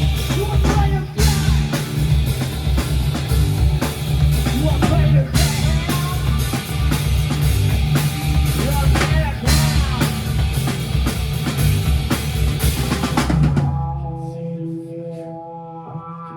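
Live rock band playing an instrumental passage with a full drum kit driving it. About 13.5 seconds in, the drums and most of the band stop at once, leaving a few held notes ringing more quietly.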